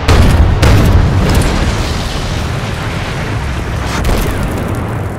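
Artillery sound effects: a quick series of cannon blasts in the first second, then a long, heavy low rumble of explosions that slowly fades, with another blast about four seconds in.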